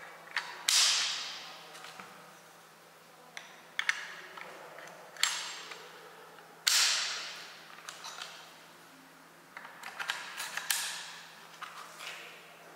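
Metal clanks and clicks from the hinged clamp and fixture inserts of an orbital pipe-welding head being opened, closed and fitted by hand. About four louder clanks, each ringing briefly, with lighter clicks between.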